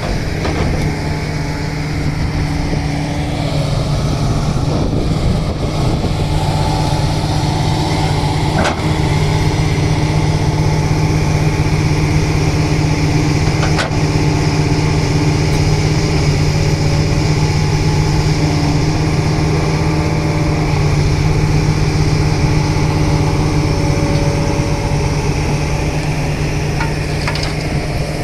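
JCB 3DX backhoe loader's diesel engine running steadily, with a couple of short knocks about a third and a half of the way through.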